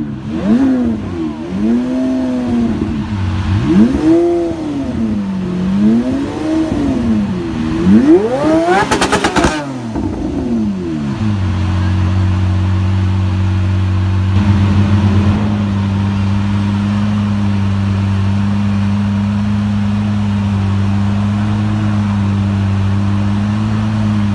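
Twin-turbo Lamborghini Aventador V12 being revved while standing still, about five blips with the highest near the ninth second topped by a burst of sharp pops. It then settles into a steady idle that steps up slightly a few seconds later.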